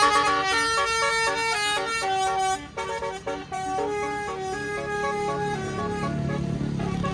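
Tour bus's basuri telolet horn playing a melody, a quick run of steady multi-tone notes stepping up and down. A low engine rumble grows under it in the last couple of seconds.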